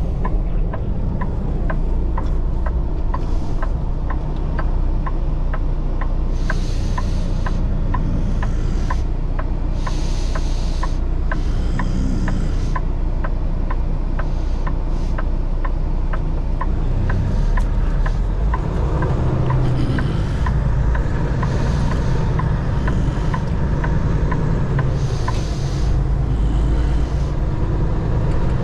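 Semi-truck cab with the diesel engine's steady low rumble, a regular clicking about twice a second, and short hisses now and then.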